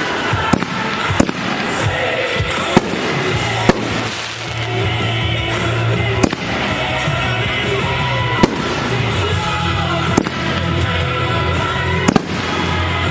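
Aerial fireworks shells bursting with sharp bangs every second or two, about eight in all, over steady music.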